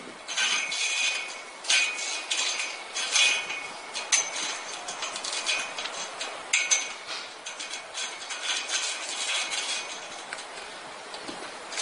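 Stiff polyester farm wire scraping and clicking against a steel pole as it is wrapped around it and knotted by hand, in irregular light, sharp strokes.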